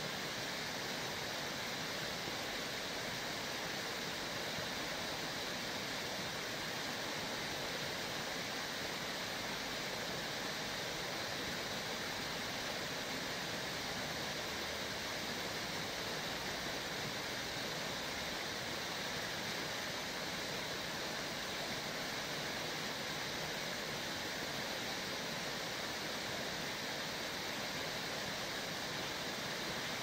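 Running water rushing steadily as an even hiss, with no breaks or changes.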